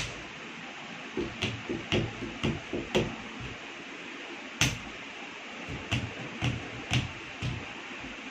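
Bare feet stamping on a tiled floor in classical Indian dance footwork: a quick run of stamps, three or four a second, then a single harder stamp, then another run of stamps.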